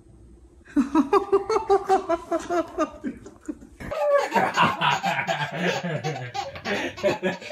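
A baby's voice in short, quick pitched pulses, then from about four seconds in a baby laughing in long, repeated belly laughs.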